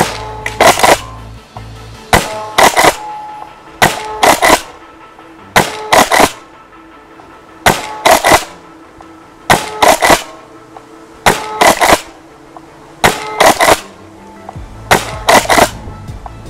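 Tokyo Marui Kel-Tec KSG gas airsoft shotgun fired over and over, about nine times, each shot and the rack of its pump making a quick cluster of two or three sharp cracks, roughly one cluster every two seconds.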